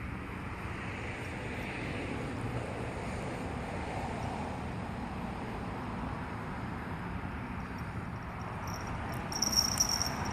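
Steady outdoor background rumble, like distant traffic and wind, with a short high-pitched chirp about nine seconds in.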